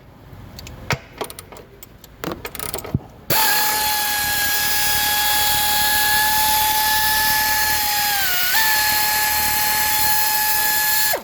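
A few sharp clicks and knocks of tool work, then a power tool starts and runs with a loud, steady high whine for about eight seconds. Its pitch sags briefly as it meets load, then it cuts off suddenly.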